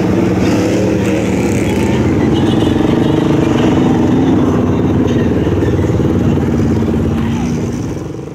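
Off-road vehicle engines, ATVs and lifted pickup trucks, idling steadily at close range, fading out near the end.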